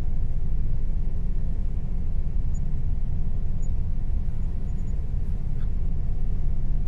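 A steady low rumble, with no other distinct sound over it.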